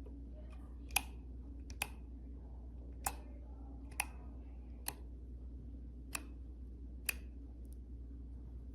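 Seven sharp, separate clicks at roughly one-second intervals, over a low steady hum.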